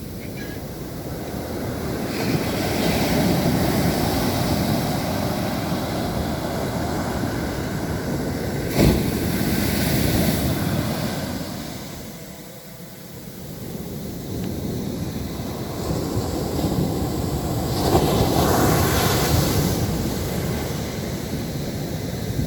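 Sea surf breaking on a beach: a steady rush of waves that swells and fades in two long surges. A single sharp click comes a little before the middle.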